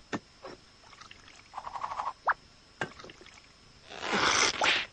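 Cartoon sound effects of a duck character tasting a drink from a small cup: a few light clinks and taps, a short warbling squeak about halfway, then a noisy slurp near the end.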